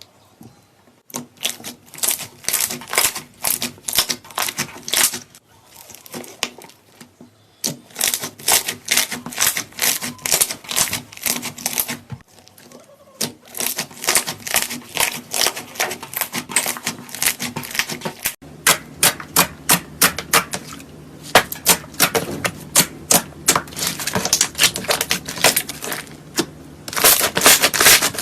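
Slime being squeezed and pressed by hand, a rapid run of sticky clicks and pops that comes in several stretches with short pauses between them.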